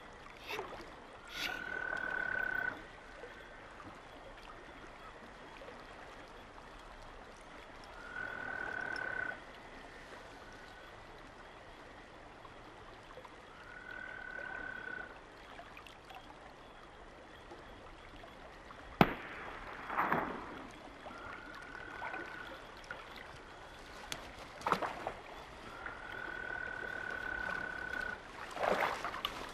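A frog giving long, even, high calls at one pitch, each lasting a second or two and repeating about every six seconds. In the second half, a few sharp clicks and knocks break in.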